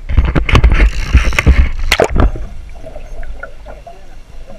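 Water splashing and rushing over a GoPro's housing as it goes under, loud and irregular for about two seconds, then a muffled underwater wash.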